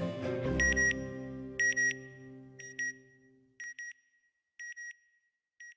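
Electronic beeps in pairs, one pair about every second, a high tone that grows fainter with each pair. Under the first few pairs, the held chords of the closing music fade out about three seconds in.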